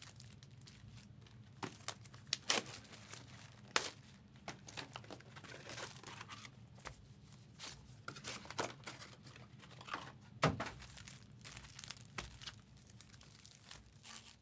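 Trading card packaging being handled and torn open: crinkling, tearing plastic and foil wrap with scattered sharp crackles, fairly quiet.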